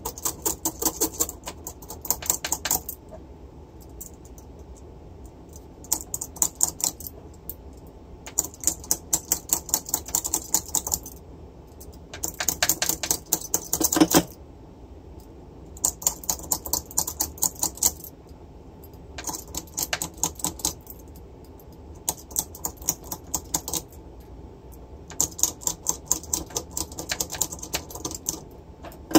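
Small metal blade scraping baked-on crud off a turntable spindle in rapid short strokes. The strokes come in about eight bursts of one to three seconds each, with brief pauses between.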